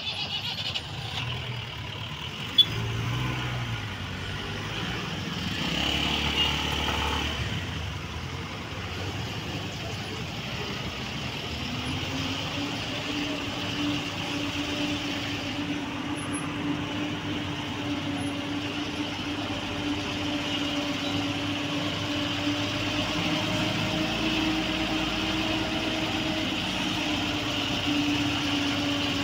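Traffic in a jam: vehicle engines idling and crawling. About twelve seconds in, a steady, even engine drone sets in close by and holds, as the camera passes alongside a tanker truck.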